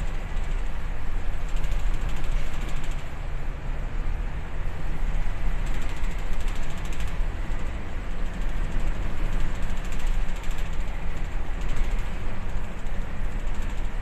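Steady low rumble and rush of noise aboard a bulk carrier running through rough sea, the engine and hull vibration mixed with the wash of waves along the hull that swells every few seconds.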